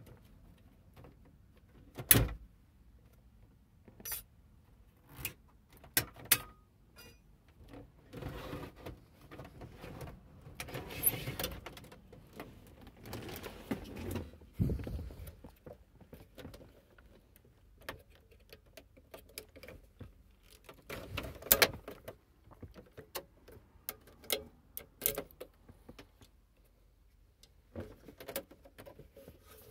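Clicks, knocks and scraping as a VW Touareg's factory radio, a metal-cased unit, is unlocked with metal removal keys and pulled out of the dashboard. There are sharp knocks, the loudest about two seconds in and again past twenty seconds, and a longer stretch of sliding and rattling in the middle.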